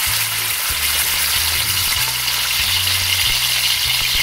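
A marinated slice of pork leg (pata) frying in shallow hot oil in a wok, with a steady, even sizzle.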